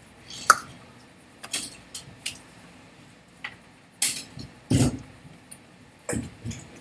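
Hands clapping and slapping together while signing in sign language: a handful of sharp taps and clicks at uneven intervals, with a fuller thud a little past the middle.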